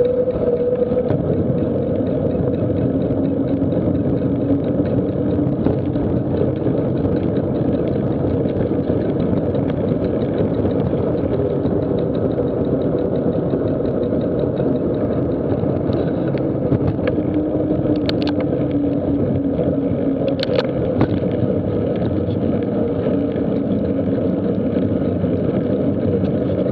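Wind buffeting the microphone of a camera riding at speed, a steady loud rush, with a few short clicks or rattles past the middle.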